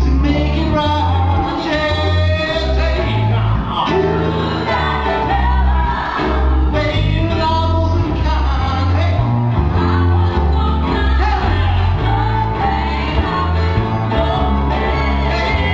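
A live band playing a song: keyboard-piano, violin, drums and a heavy bass line under lead and backing vocals, in a large hall.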